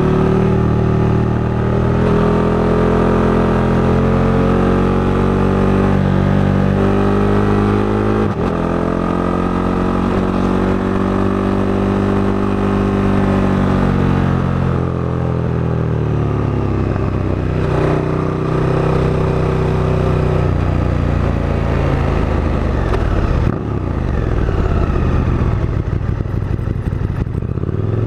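KTM 1290 Super Duke GT's V-twin engine running on the move, its note climbing and falling with the revs. It has a few short breaks, about a third of the way in, about two-thirds in and again later.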